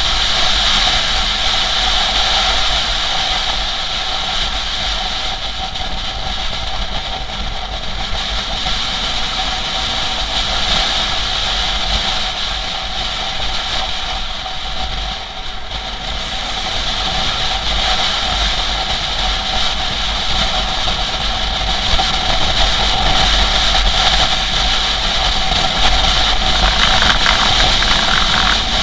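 Motorcycle running at highway speed, its engine drone mixed with heavy wind rush on the microphone. The sound eases a little about halfway through and builds again towards the end.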